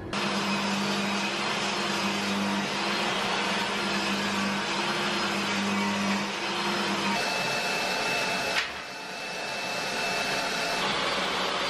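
Benchtop table saw running and ripping a wooden board, with a shop vacuum running alongside: a loud, steady machine noise. About eight and a half seconds in a sharp knock sounds, the noise dips and then builds back up.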